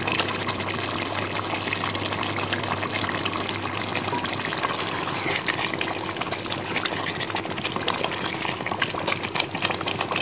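Thick chicken curry gravy simmering in a pot, bubbling and spluttering with frequent small pops that grow busier near the end, over a steady hiss with a low hum.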